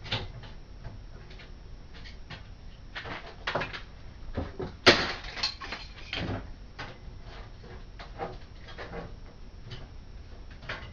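Sheet-metal PC case panels being worked apart by hand after the rivets have been drilled out: scattered knocks and rattles of metal, with one sharp clank about five seconds in.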